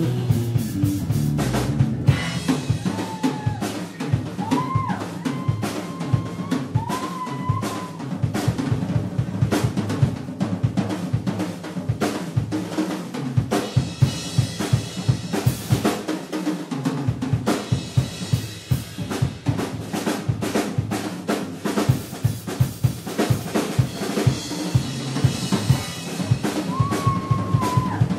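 Drum solo on a rock drum kit: fast, dense beats on kick drum, snare and cymbals.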